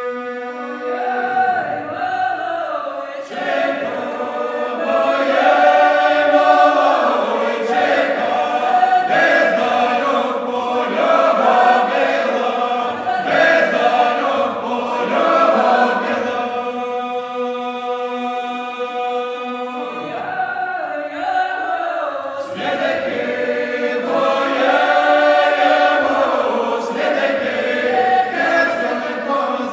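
Mixed folk choir of men's and women's voices singing a Belarusian folk song a cappella, in close harmony. Moving phrases alternate with long held chords.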